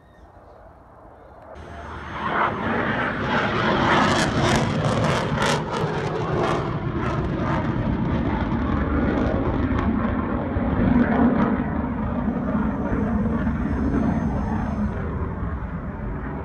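F-16 fighter jets flying over low, a loud jet roar that swells in over the first two seconds, crackling for a few seconds after, then holds steady and eases off slightly near the end.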